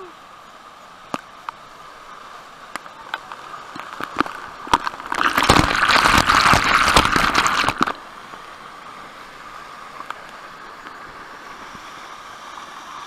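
Waterfall pouring steadily into a rocky pool, with water droplets ticking against the microphone. From about five to eight seconds in, a loud burst of splashing as spray and foam hit the microphone, then the steady rush again.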